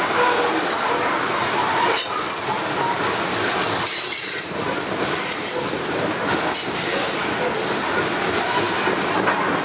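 Steel wheels of a CSX freight train's hopper cars rolling past close by: a steady rumble and clatter over the rail, with a light wheel squeal.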